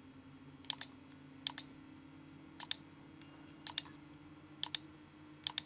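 Computer mouse button clicking six times, about once a second. Each is a quick double tick of press and release, over a faint steady hum.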